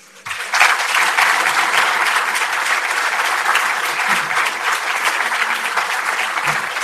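Audience applauding at the end of a lecture, steady clapping that starts within the first second.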